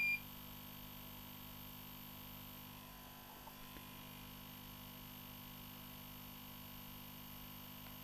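A short, high electronic beep right at the start, then a faint, steady electrical mains hum.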